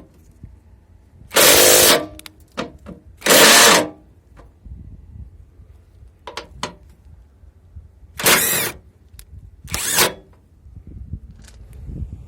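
Cordless impact wrench run in four short bursts of hammering, two close together near the start and two more about two-thirds of the way in, with small clicks and knocks between them.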